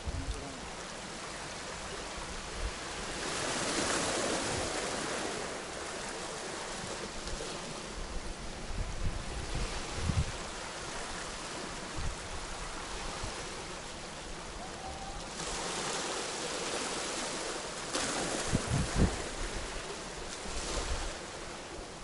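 Small waves washing onto a pebble beach in a steady hiss, swelling twice, around four seconds in and again for several seconds near the end. A few short low thumps of wind on the microphone come through, the strongest about ten seconds in and near the end.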